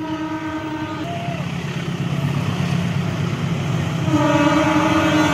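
CC 203 diesel-electric locomotive approaching, its engine rumble growing steadily louder, sounding its horn: a blast of about a second at the start and a long blast beginning about four seconds in.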